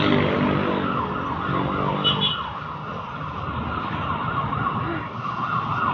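An emergency-vehicle siren wavering up and down in pitch over street traffic. The traffic sound drops away about two seconds in.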